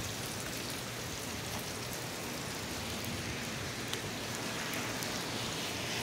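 Steady rain falling on pavement and a wet street, an even hiss with occasional sharper ticks of single drops close by.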